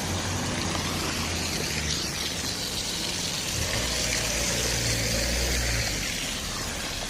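City street traffic on a snowy road: a vehicle's engine running low with tyre hiss, swelling about halfway through and easing off near the end.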